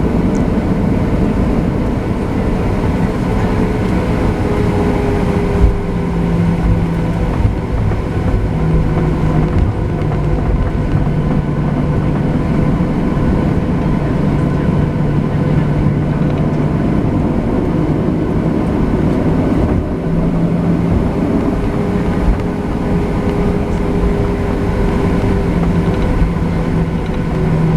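Boeing 737-700 jet under way, heard inside the cabin over the wing: its CFM56-7B turbofans run with a loud, steady rumble and a low drone that wavers slightly in pitch.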